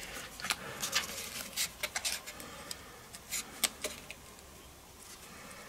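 Cardstock crackling and tapping as the panels of a folded card are handled and pressed. A series of light clicks and rustles comes over the first four seconds, then it goes quieter.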